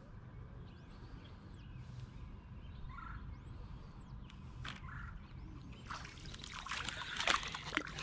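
A thin high bird whistle, each note rising and falling, repeats three times. From about six seconds, quick irregular splashing and clicking grows louder.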